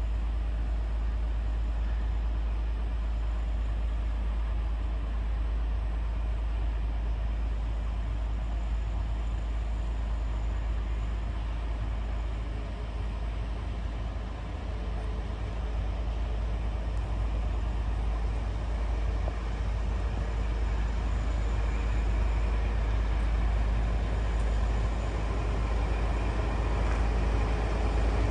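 Diesel locomotive hauling a gravel train slowly toward the listener: a steady low rumble that grows louder over the last half.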